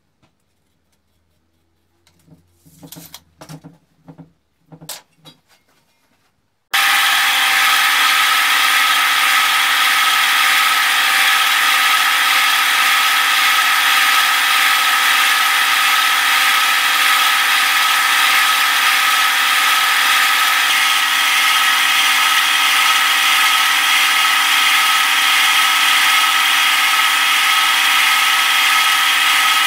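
A few light taps and knocks. About seven seconds in, a horizontal metal-cutting bandsaw comes in abruptly and runs steadily as its blade cuts through a rusty steel tube: a loud, even sawing noise with a few steady tones ringing through it.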